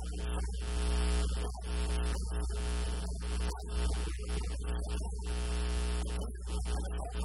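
Loud, steady electrical mains hum, with a man's preaching voice garbled and indistinct beneath it.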